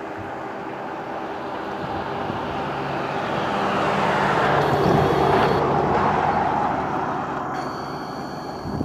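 A road vehicle passing by, its engine and tyre noise swelling to a peak about halfway through and then fading away.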